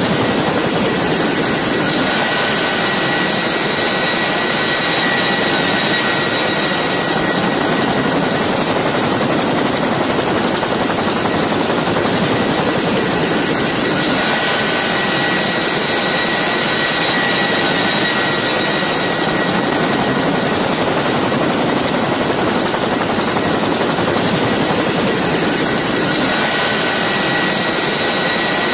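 A CH-47 Chinook's twin turbine engines and tandem rotors running on the ground, heard close by at its open rear ramp: a steady loud rush with high turbine whine tones that swell and fade every few seconds.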